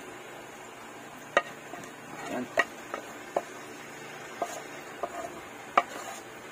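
A serving utensil clicking and tapping against a ceramic plate about seven times at uneven intervals, over a faint steady hiss.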